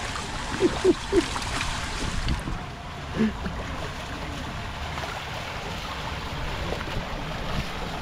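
Wind buffeting the action camera's microphone, mixed with shallow water splashing as a toddler crawls through a pool's wading ledge. Three brief pitched chirps stand out about a second in, with one more a little after three seconds.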